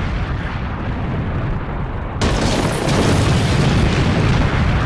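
Sound effect for an animated logo intro: a loud, deep rumbling whoosh that steps up suddenly about two seconds in into a fuller, louder blast.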